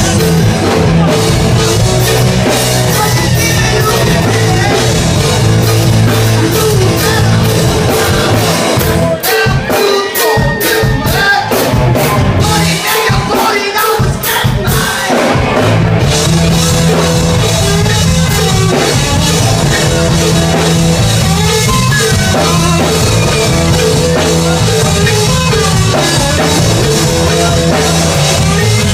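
Rock band playing with a singer, drum kit and guitar. In the middle the bass drops away for several seconds and then comes back in.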